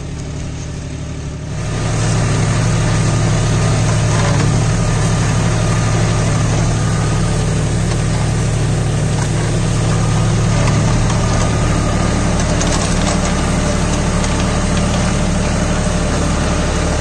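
John Deere 5050D tractor's diesel engine running steadily, louder from about two seconds in.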